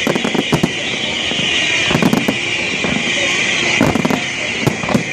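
Aerial fireworks bursting in quick succession: many sharp bangs and pops, with clusters about two seconds in and again near the end, over a continuous high hiss.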